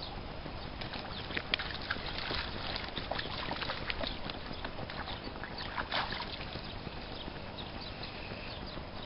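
Dog splashing in shallow pond water and scrambling out up the bank: a run of short splashes and small knocks between about one and six seconds in, over a steady low rumble.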